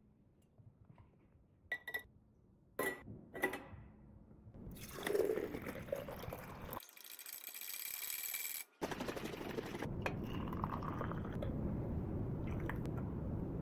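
A few short glass clinks, then liquid being poured into a glass, a steady rushing pour broken off once by an abrupt cut.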